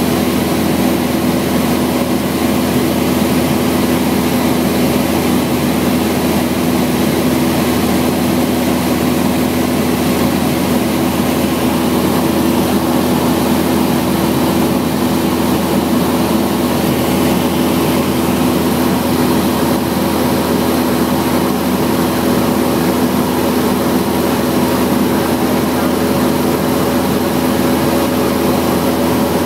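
Single-engine Cessna's piston engine and propeller droning steadily in level flight, heard from inside the cabin, with steady low tones over a constant rush of noise.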